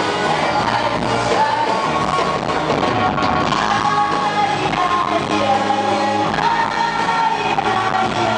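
Rock band playing live: electric guitar and full band under a singer's long held notes that slide between pitches.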